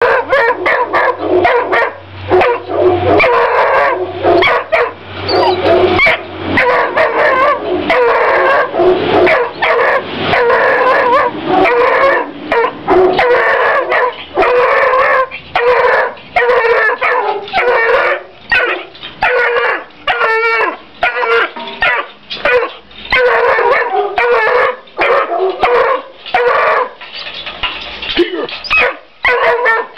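Three-month-old Walker hound puppy barking and baying in a rapid, unbroken string of short, high calls, somewhat under two a second.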